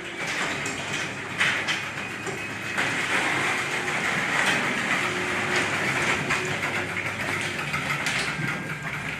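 Steady heavy rain falling, with a few sharper taps and clicks among it.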